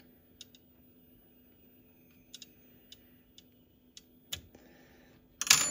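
Faint, scattered metal clicks of a hex (Allen) key turning the large screw that holds the nozzle blocker arm on a Bambu Lab H2D 3D printer, with one louder clack near the end. A steady low hum runs underneath.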